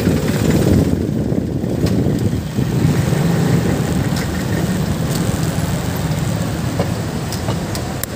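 Motorcycle running while being ridden, a steady low engine and road rumble with a few faint clicks.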